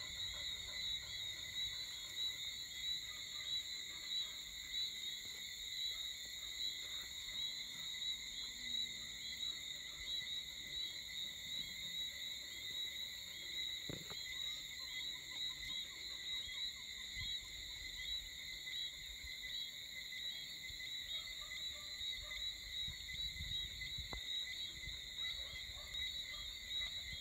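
Evening chorus of calling insects: a steady, high-pitched pulsing trill at several pitches.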